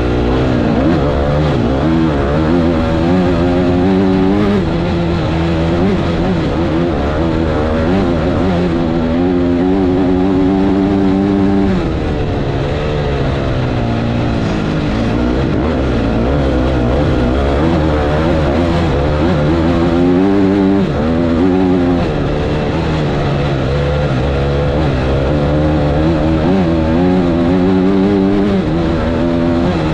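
Dirt bike engine under race throttle, heard close up from a camera mounted on the bike. The revs climb in steps through the gears and fall back, dropping sharply about twelve seconds in and again a little past twenty seconds.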